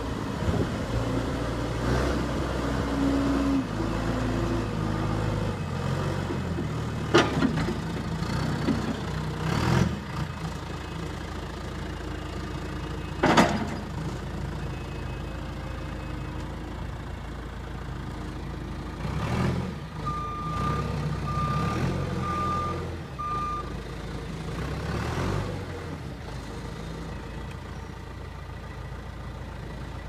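John Deere 410E backhoe loader's turbo diesel engine running under varying load as the machine is driven and its loader worked, with three sharp knocks in the first half. About two-thirds through, its reversing alarm sounds four short beeps.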